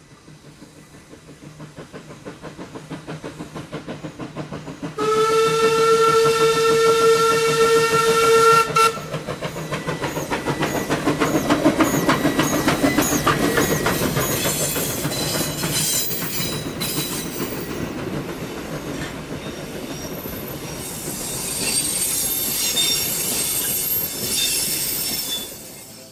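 Queensland Railways C17-class 4-8-0 steam locomotive working a train up a curve, its exhaust beats growing louder as it approaches, then one steam whistle blast of about four seconds. The engine and carriages then pass close by, wheels clicking over the rail joints, with high-pitched wheel squeal in the later part.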